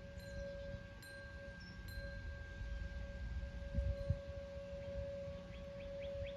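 Distant Whelen WPS-2084 electronic outdoor warning siren sounding a steady tone, swelling and fading slightly, with wind rumbling on the microphone.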